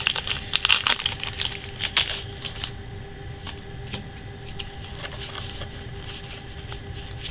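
Foil Pokémon booster pack wrapper crinkling and tearing open: a fast run of crackles and clicks over the first two to three seconds, then softer, scattered clicks as the cards are taken out and handled.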